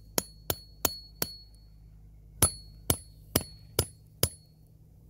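Small axe striking the spine of an Elk Ridge bushcraft knife to baton it down through a log: sharp metal-on-metal strikes, each with a brief ring. There are four strikes, a pause of about a second, then five more about half a second apart.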